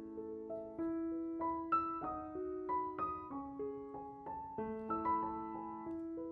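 Background music: a gentle solo piano melody, notes struck a few times a second and left to ring.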